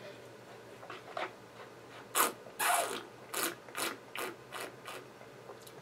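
A taster working a sip of dry white wine in his mouth: a string of about seven short wet sucking and smacking sounds, roughly two a second, starting about two seconds in.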